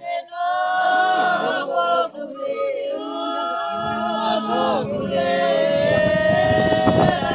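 A group of people singing together without instruments, several voices overlapping on long held notes. From about four seconds in, a rough low rumble runs under the singing.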